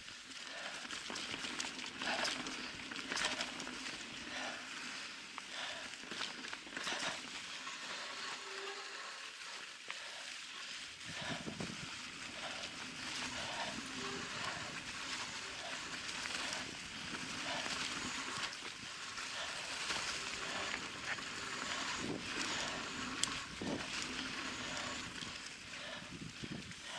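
Mountain bike ridden on a dirt trail: a steady rush of tyre and trail noise, with the rider's hard, rhythmic breathing pulsing about one and a half times a second.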